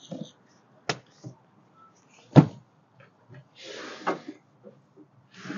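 Rear seats in a pickup's cab being folded down by hand: a few light latch clicks, a sharp knock about two and a half seconds in, a short rustling slide, then a heavier thump at the very end.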